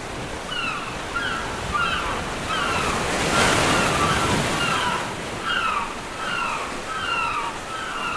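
Ocean surf washing and breaking, swelling loudest about three and a half seconds in. Short falling cries repeat about once a second over it.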